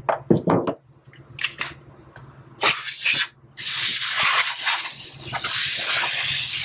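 A few light clicks and clatters of tools being handled, then a compressed-air blow gun hissing: a short blast near the three-second mark, then a steady blast from about three and a half seconds in.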